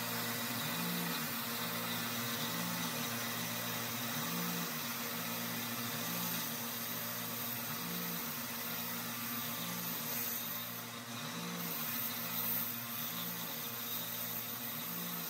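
CNC milling machine spindle running as an end mill bores a hole in a cast-aluminium engine crankcase: a steady machine whir with a hiss over it and a low pulse about once a second.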